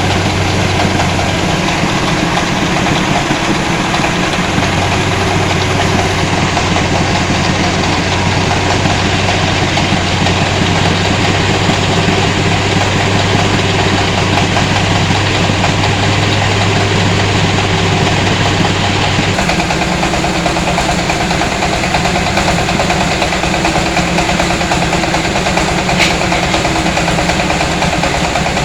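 Engine of a mobile rice-hulling machine on a three-wheeler running steadily and loudly, with a dense mechanical clatter over a low hum; the hum drops away and the tone shifts about two-thirds of the way through.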